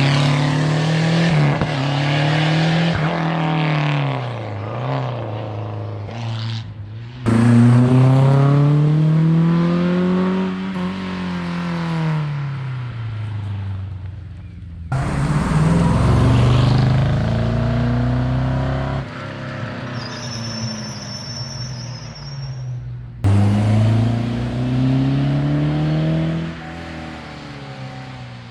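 Rally cars at speed on a stage, one after another, each engine revving hard with its pitch climbing and dropping through the gear changes.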